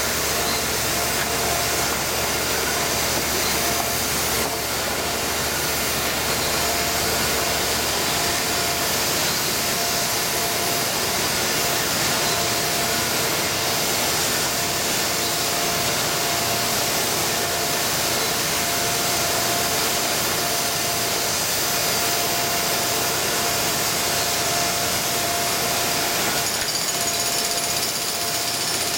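Jackhammer running without a break, a dense, even noise with a faint steady whine in it.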